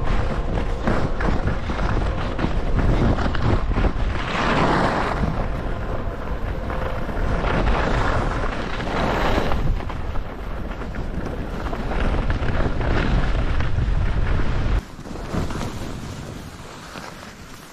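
Wind rushing over the microphone together with the hiss and scrape of skis running over tracked-out snow, swelling into a louder swoosh twice as the skis turn. About three seconds before the end the low wind rumble cuts off suddenly and the ski sound goes quieter.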